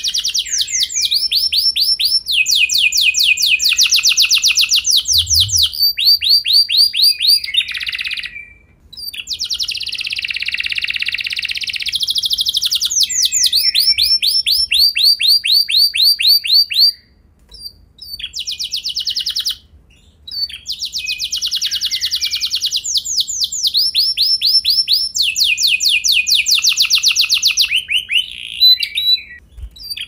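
Domestic canary singing a long song of fast rolling trills, each phrase a rapid run of repeated notes, phrase following phrase with a few short pauses.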